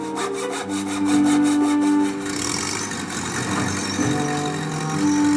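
Hand saw cutting wood, a quick run of rhythmic strokes in the first couple of seconds followed by rougher rasping, used as a sound effect. Background music with held notes plays underneath.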